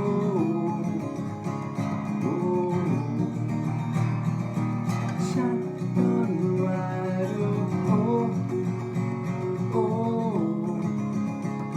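Country song in a stretch without lyrics: strummed acoustic guitar under a melody line that slides up and down between notes in short phrases.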